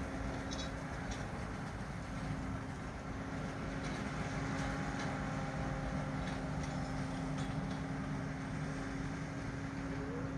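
New Holland T7 245 tractor running steadily while it pulls a working New Holland round baler, with a constant hum and scattered light clicks on top.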